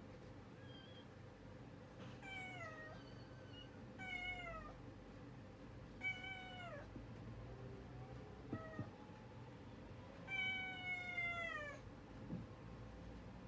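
A tabby cat meowing five times, about two seconds apart, each meow dropping in pitch at its end; the fourth is short and the last, near the end, is the longest.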